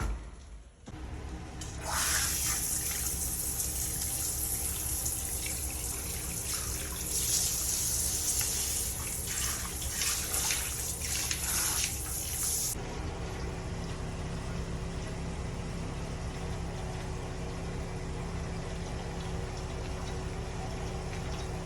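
Running water spraying, its hiss rising and falling, then cutting off suddenly about halfway through. A steady low hum carries on after it.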